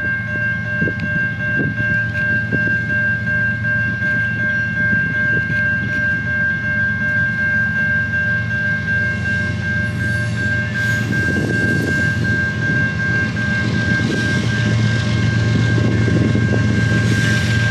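Grade-crossing warning bell ringing steadily as a Canadian National freight train's diesel locomotives approach. Their low engine rumble grows louder near the end.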